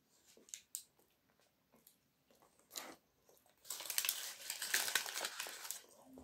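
Aluminium foil crinkling under a hand for about two seconds in the second half, after a few faint clicks while she chews.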